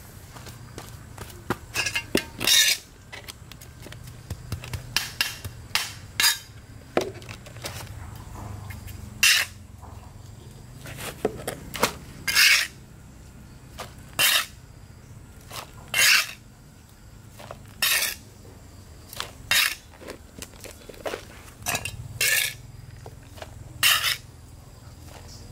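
Small metal garden trowel scooping potting soil off a concrete floor and tipping it into a plastic pot: a short scrape and rustle about every two seconds.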